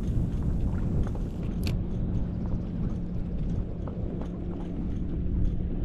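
Wind buffeting the microphone on a kayak, a steady low rumble with a faint steady hum under it and a few small clicks.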